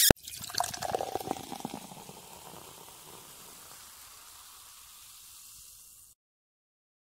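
Liquid bubbling and gurgling, busiest in the first two seconds, then settling into a steady fizzing hiss that cuts off suddenly about six seconds in.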